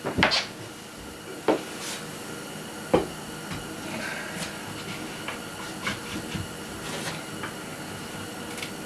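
A few sharp knocks and lighter clicks and clatter of wood and tools being handled during assembly of a wooden tool chest carcass. There are three loud knocks within the first three seconds, then smaller scattered clicks.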